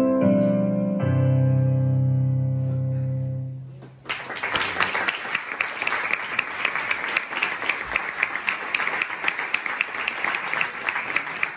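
Piano music ending on a held low chord that fades away, followed about four seconds in by audience applause.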